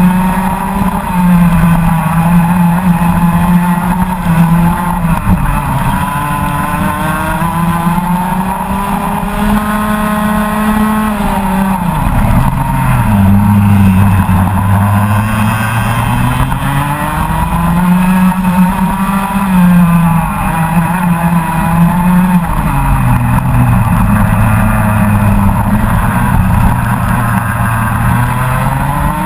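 Rotax Max Senior 125 cc single-cylinder two-stroke kart engine at racing revs. The note falls sharply twice, about twelve and twenty-two seconds in, as the driver lifts off for corners, then climbs again under acceleration.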